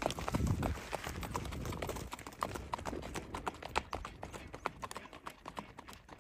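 Hooves of a saddled horse clip-clopping on a dirt and gravel trail as it is led past at a walk, the steps growing fainter toward the end. A low rumble sits under the first second.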